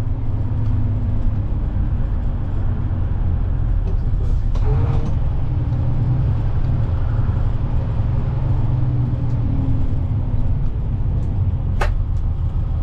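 Bedford YMQ coach's diesel engine and road rumble heard from inside the moving coach: a steady low drone whose engine note shifts briefly about four to five seconds in. A single sharp click comes near the end.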